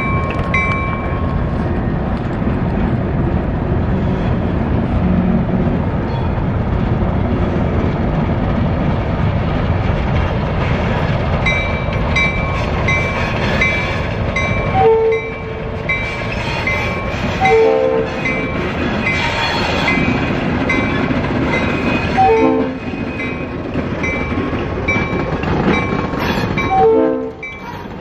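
Baldwin S12 diesel switcher locomotive running with a steady low rumble. From about eleven seconds in, a bell rings evenly about twice a second. Four short, louder sounds that fall in pitch come near the middle and end.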